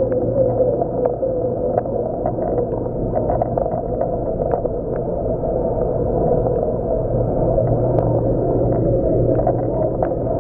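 Steady rushing water and a low hum from a reef frag tank's circulation pumps and plumbing, with scattered faint ticks.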